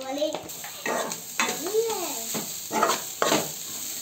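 Chicken sukka masala frying in a pan with a steady sizzle, stirred in about five scraping strokes that mix in grated coconut and turmeric.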